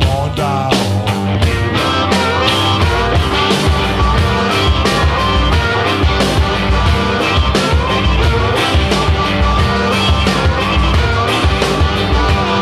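Blues-rock music: a band's electric guitar and drums playing a steady beat.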